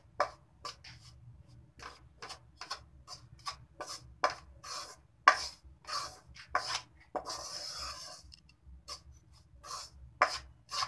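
Metal spoon scraping and tapping against a kadhai while stirring water chestnut flour as it roasts. Short gritty scrapes come about two or three a second, with one longer scrape about seven seconds in.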